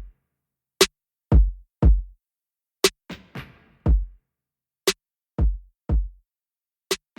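Electronic drum-machine beat: a sharp snap about every two seconds, with deep kick drum hits in between.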